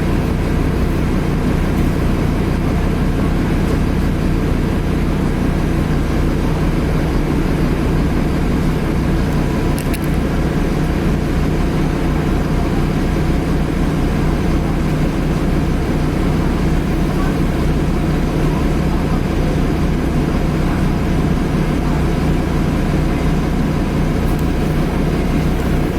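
2010 Nova Bus LFS articulated bus with a Cummins ISL diesel engine running steadily under way, heard from inside the cabin, with a steady thin turbo whine over the engine and road noise.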